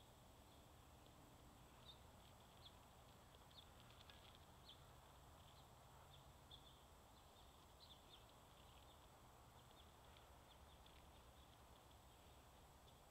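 Near silence: faint outdoor background hiss with scattered faint, short, high chirps, most of them between about two and nine seconds in.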